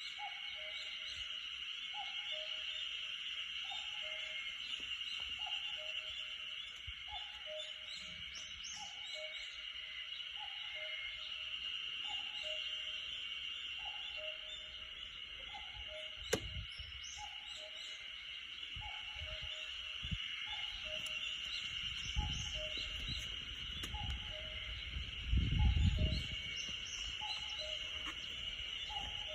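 Common cuckoo calling over and over, a falling two-note "cuck-oo" repeated a little faster than once a second, over a steady high hiss of forest ambience with a few small high bird chirps. A single sharp click sounds about halfway through, and a low rumble swells near the end.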